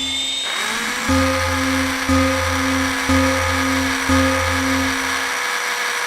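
Electronic, distorted level-crossing alarm sound effect: a low tone pulsing in a two-beat pattern about once a second over a steady buzzing whine. A second tone rises in pitch about half a second in and then holds, and the pulsing stops shortly before the end while the whine carries on.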